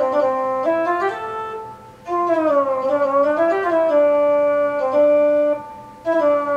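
MIDI theremin played by moving the hands over its sonar sensors, sounding one sustained synthesized note at a time through a MIDI sound module. The pitch steps up and down between notes and slides smoothly in places, as the portamento setting glides from one note to the next. It comes in three phrases, with short breaks about two seconds in and near the end.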